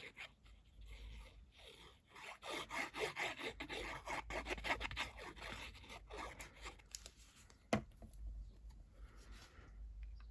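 Paper and cardstock being handled, rubbed and scraped on a craft table, a busy run of scratchy rustling in the middle, with one sharp click near the end.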